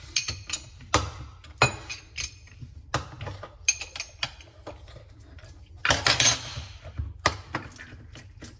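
Steel hand tools and the metal parts of an injector puller clinking and clattering on a metal workbench while the puller's clamp is taken apart. Sharp metallic clinks, some ringing briefly, with a longer rattling clatter about six seconds in.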